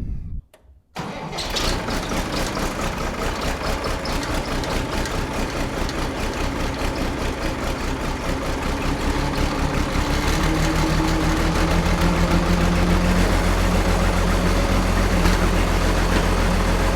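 Allis-Chalmers 185 tractor engine starting about a second in and running at a steady idle to warm up. It grows a little louder, with a firmer low beat, about ten seconds in.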